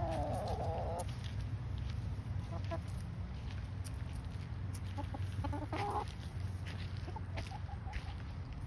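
Backyard chickens clucking: a drawn-out call in the first second, then scattered short clucks and calls, with a steady low rumble underneath.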